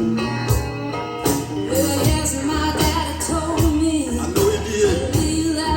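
Blues-rock music playing with a steady drum beat and a wavering sung melody line.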